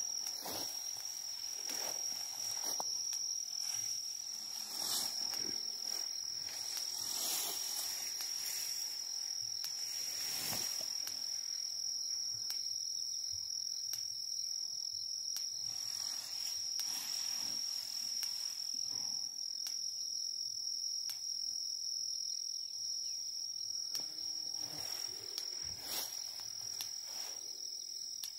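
Insects trilling steadily at one unbroken high pitch, with scattered soft rustles over it, most of them in the first half.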